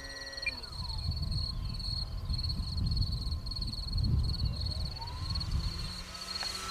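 The Bighorn 49's brushless motor and propeller whine overhead, sliding down in pitch and fading about half a second in as the throttle is cut. The whine rises again near the end as power comes back on. Wind rumbles on the microphone, and a high insect trill pulses steadily throughout.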